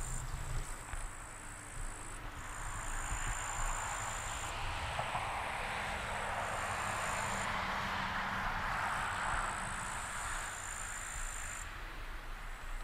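Insects chirring in high, steady trills that switch on and off every second or two, over a broad rushing noise that swells through the middle and eases near the end.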